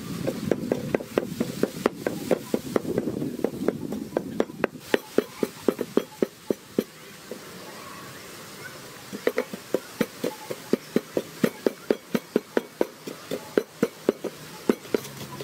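Wooden pestle pounding salt and dried chili in a mortar: steady knocks about four a second, stopping for about two seconds near the middle, then starting up again.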